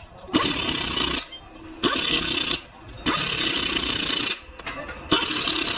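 Pneumatic impact wrench running in four bursts of about a second each, driving on the wheel's lug nuts.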